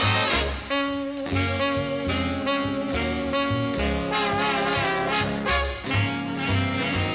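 Background music: an upbeat instrumental tune with a melody line over a regular bass line.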